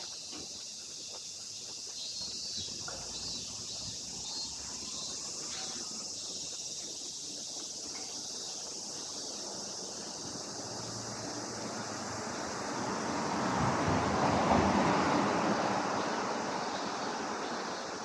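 Outdoor street sound: a steady high-pitched hiss of cicadas, with a vehicle passing by that swells and fades about two-thirds of the way through.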